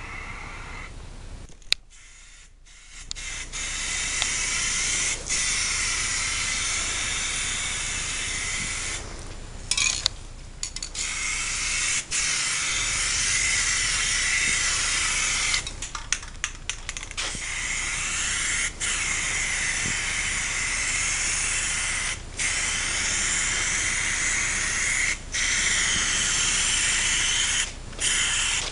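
Aerosol spray paint can, fitted with a clip-on trigger handle, spraying with a steady hiss. The hiss stops briefly every few seconds as the trigger is released, with longer breaks early on and near the middle.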